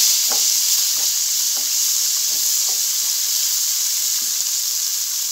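Diced red and green peppers sizzling as they hit rice toasting in hot butter and oil in a pan, a loud steady hiss, with faint light scrapes of the stirring spoon.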